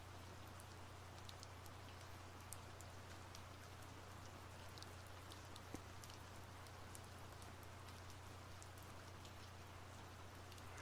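Soft, steady rain with scattered individual drops ticking, over a steady low hum.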